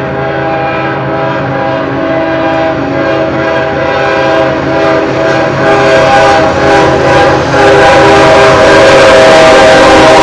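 Ferromex diesel freight locomotive's air horn sounding a long steady chord as the locomotive approaches and passes, over the rumble of its engine and wheels. The horn grows louder and peaks about eight seconds in.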